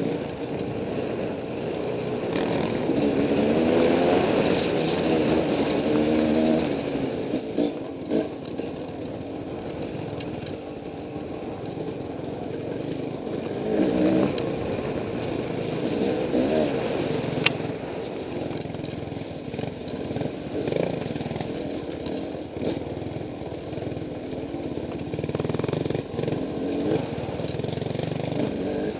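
Off-road dirt bike engine being ridden on a rough trail, its revs rising and falling as the throttle is worked on and off. A single sharp click stands out about two-thirds of the way through.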